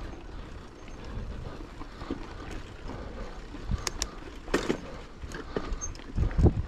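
Wind rumble on the microphone and rattling of a bicycle being ridden, with a few sharp knocks about four seconds in; the rumble swells louder near the end.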